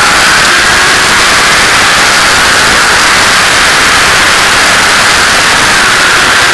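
Loud steady wind rush over an onboard camera's microphone at road speed, with the engine note faint beneath it.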